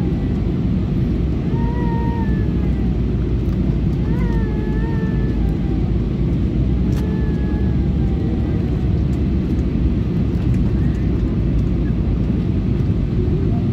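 Airliner cabin noise during descent: a steady, low drone of engines and airflow heard from a window seat, with faint passenger voices now and then.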